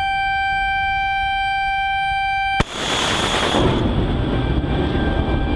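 A Harpoon anti-ship missile launched from a destroyer's deck canister launcher. A steady warning tone sounds first; about two and a half seconds in the booster fires with a sharp crack and a loud hissing blast, which settles into a rumble as the missile leaves.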